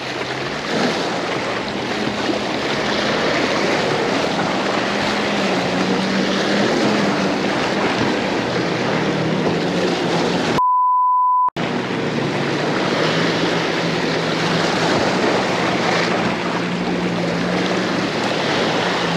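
Jet ski engine droning close by with a slightly wavering pitch, over the rushing hiss of its wake and spray. A one-second censor bleep cuts in about ten and a half seconds in.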